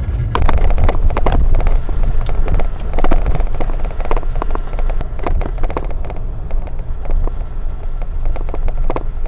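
Vehicle driving over a rough road: a steady low rumble with frequent knocks and rattles.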